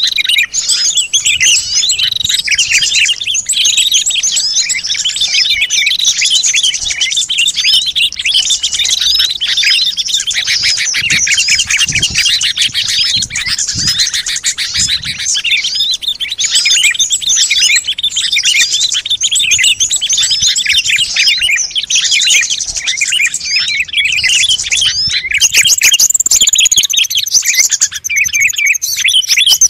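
A dense chorus of many small songbirds chirping and twittering rapidly all at once, the busy chatter of a bird-lure track. Higher, sliding whistled calls join in near the end.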